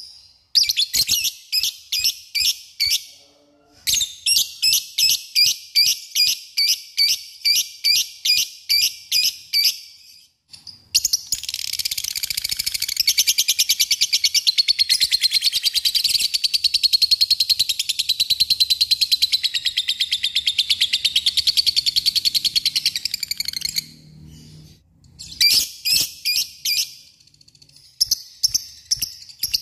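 Lovebird calling: runs of sharp, evenly repeated chirps, about three a second, then a long unbroken rapid chatter lasting about thirteen seconds, the 'ngekek' song, then short runs of chirps again near the end.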